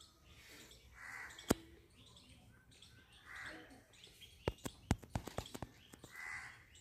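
Crows cawing, three short caws about two to three seconds apart. A sharp click comes about a second and a half in, and a quick run of clicks follows at about four and a half to five and a half seconds.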